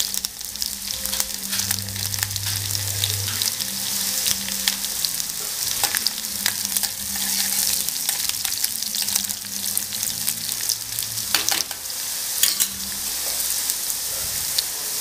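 Sliced onions with mustard seeds and cumin sizzling steadily in hot oil in a kadhai while being stirred, with a few sharp clicks along the way.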